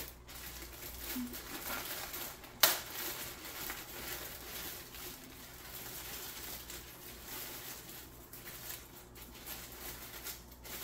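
Gift packaging being handled, with soft crinkling and rustling and one sharp click about three seconds in.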